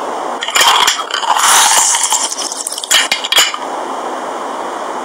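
Foley clinks and scrapes of a metal hand lime squeezer and kitchen utensils, in a few short clusters over a steady hiss.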